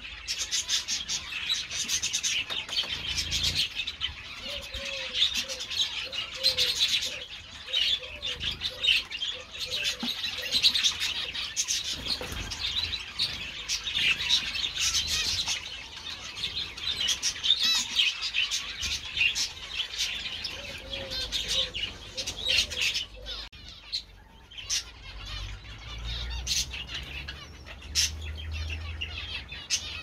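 Many small aviary birds chirping and twittering together, with wings fluttering. A lower call repeats in a quick run twice, about five seconds in and again past twenty seconds, and the chatter thins near the end.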